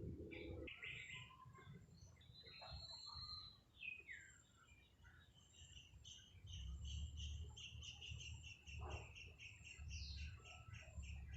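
Faint bird chirps: scattered high calls, then from about halfway a rapid even run of short high chirps, about five a second, over a low rumble.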